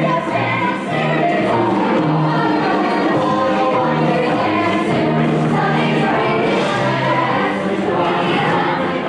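A full cast sings a show tune in chorus over instrumental accompaniment, with a bass line stepping from note to note beneath the voices.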